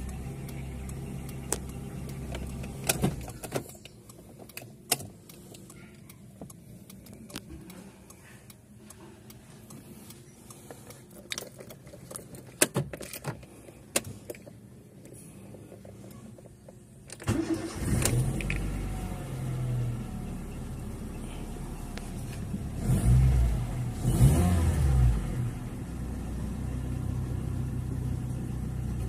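Honda L13 1.3-litre four-cylinder engine idling, then shut off, with a few clicks in the quiet gap. About 17 seconds in it is started again, revved twice and left to idle. This is the engine with a misfire complaint, said to run badly, worst on first start.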